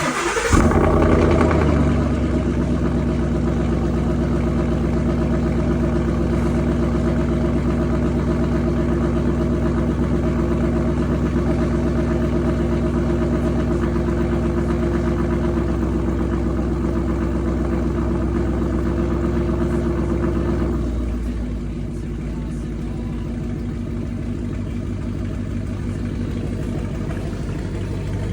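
Ford Mustang engine starting with a brief flare of revs, then its exhaust idling steadily at a raised idle. About 21 seconds in the idle drops to a lower, quieter speed and holds there.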